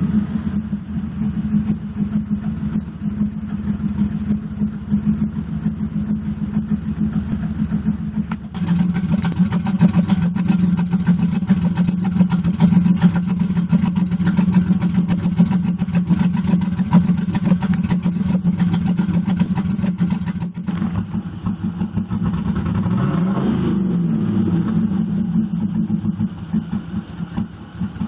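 1998 Pontiac Firebird Trans Am's LS1 5.7-litre V8 running with a misfire that new plugs and plug wires have not cured. It gets louder about eight seconds in, and its pitch dips and comes back up about twenty-three seconds in.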